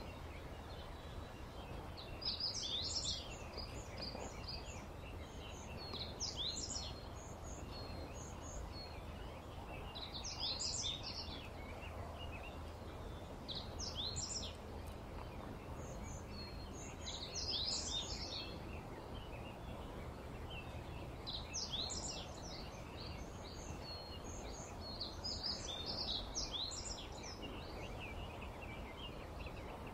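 A songbird singing short phrases of quick, high chirping notes, one phrase about every four seconds, over a steady low background hum.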